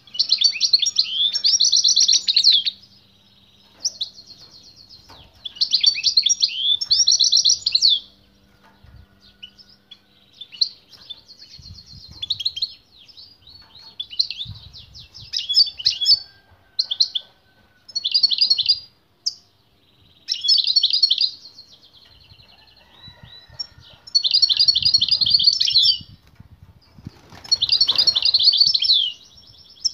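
European goldfinch singing strongly: bursts of rapid, high twittering phrases, each a second or a few seconds long, repeated again and again with short pauses between them.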